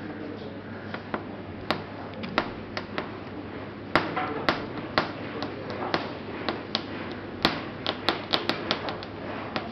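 Embroidery needle pricking through taut cloth: sharp, irregular clicks, sometimes several in quick succession, over steady room noise with a low hum.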